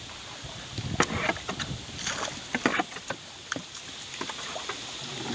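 Small wooden boat on the water: an irregular run of sharp splashes and wooden knocks, starting about a second in, over a steady hiss.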